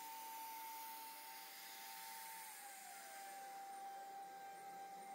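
CNC router spindle running with a steady high whine over a hiss; about halfway through the whine drops slightly in pitch with a short downward glide.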